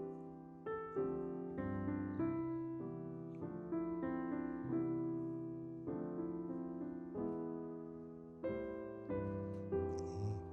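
Gentle solo piano background music: single notes and chords struck about once or twice a second, each fading away.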